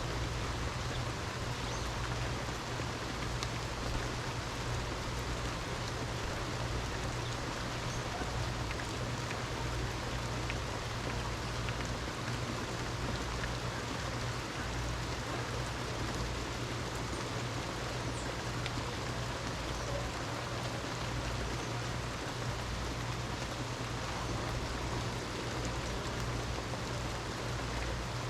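Steady heavy rainfall, an even hiss of falling rain with a continuous low rumble underneath.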